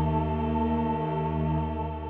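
Background music: a sustained organ chord held steady, fading slightly near the end.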